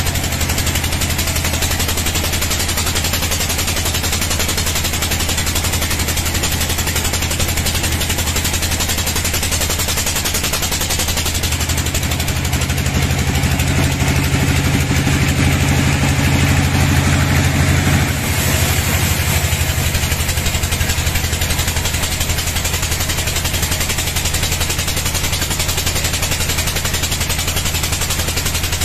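Band sawmill cutting a bayur log: the steady low drone of the mill's motor and running blade, growing louder about twelve seconds in and dropping back suddenly about six seconds later.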